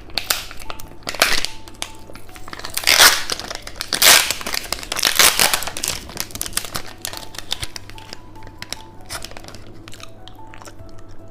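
Plastic candy wrapper crinkling and tearing as a cheese-stick candy is unwrapped, in several loud crinkly bursts through the first half and softer rustling after that.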